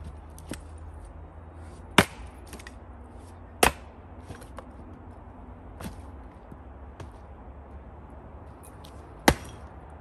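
Axe blows striking wood: three sharp, heavy strikes, about two seconds in, just under four seconds in and near the end, with a couple of lighter knocks between.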